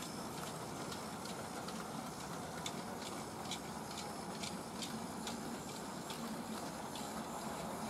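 Model railway train running on the track: a steady whirring with light, regular clicks of wheels over rail joints, about two to three a second, starting a little over two seconds in.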